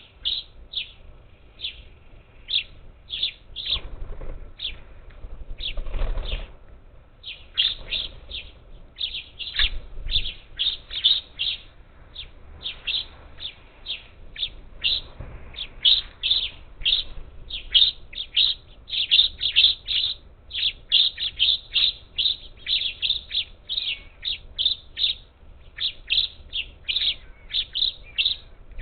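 A flock of parakeets at a feeder calling in short, sharp chirps, several a second, growing denser and louder after the first several seconds. A few low rumbles come within the first ten seconds.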